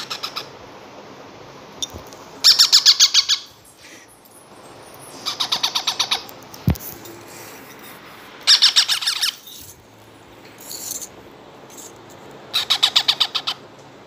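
Two-month-old ringneck parrot chicks calling while being hand-fed: four bursts of rapid stuttering food-begging calls, each about a second long, every three to four seconds. A single soft thump comes about halfway through.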